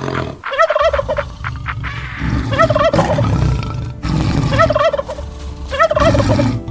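Turkey gobbling: four rapid, warbling gobbles spaced a second and a half to two seconds apart, over a low rumble.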